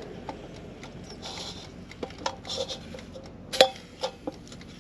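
Cooking utensils clinking and scraping against an air fryer basket as a pork loin is flipped: a few scattered clinks, the loudest about three and a half seconds in.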